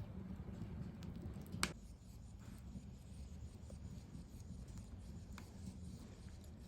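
Wood fire crackling in a fireplace: a low steady rumble of flames with scattered small pops, and one sharp crack just under two seconds in.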